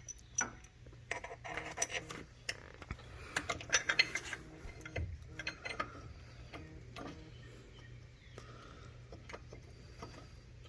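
Bolts and hand tools clinking and clicking, with scattered metallic clicks that are dense in the first half and thin out in the second half.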